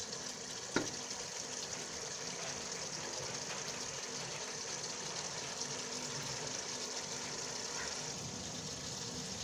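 Mutton curry sizzling steadily in a pot, cooked down until the oil separates at the sides, the sign that the meat is done. A single short knock sounds just under a second in.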